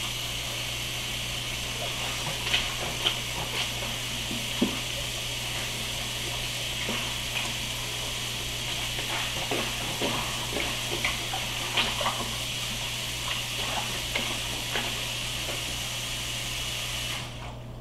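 Kitchen tap running steadily into a stainless steel sink, with scattered small knocks and clinks as wet goalkeeper gloves are handled; the tap is shut off near the end.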